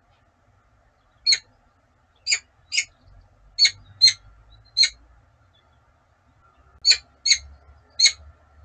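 Peregrine falcon giving short, sharp calls, about ten of them, some single and some in quick pairs.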